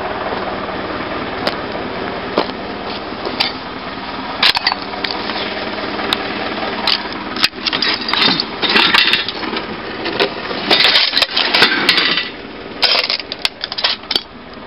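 A tractor engine running steadily, then from about halfway through, irregular knocking and clattering of boards and debris, which covers the engine sound.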